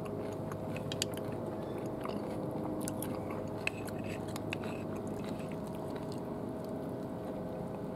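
A man chewing a mouthful of raw meat, with scattered small clicks of a horn spoon scraping inside a glass jar, over a steady low hum.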